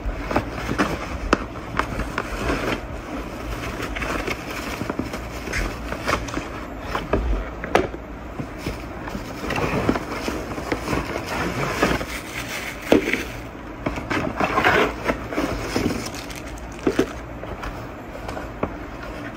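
Clear plastic bags crinkling and rustling as plastic-wrapped light-stand parts are handled, with scattered light knocks of the parts set down on a wooden tabletop.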